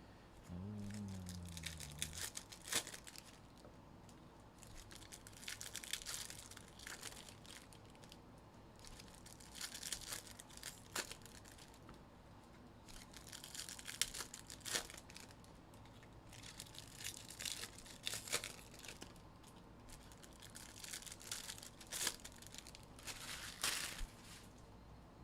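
Trading-card pack wrappers being torn open and crinkled by hand, in about six crackling bursts a few seconds apart with sharp snaps among them.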